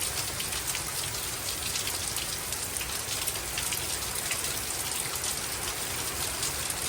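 Heavy rain pouring steadily in a severe storm, a dense patter of drops hitting the ground and surfaces.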